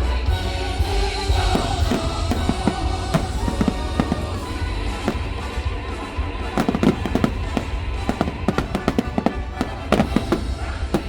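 Fireworks bursting in rapid volleys over loud show music, with the densest clusters of bangs a little past the middle and again near the end.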